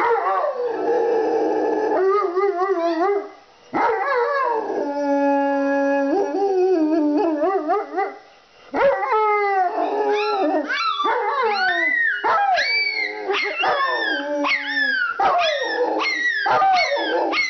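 A small dog howling in long, wavering notes, then breaking into a quick run of short, falling yips and barks about halfway through.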